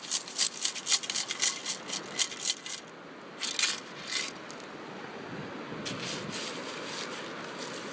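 Sand scoop being shaken to sift a dug target: sand and shell bits rattle through its mesh basket in quick shakes, about four a second, stopping about three seconds in, with a couple more shakes about a second later.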